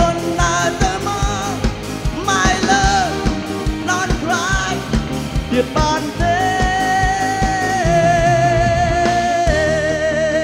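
Male pop singer singing a ballad live into a handheld microphone over a band backing track with a steady drum beat. He holds a long note with vibrato through roughly the last four seconds.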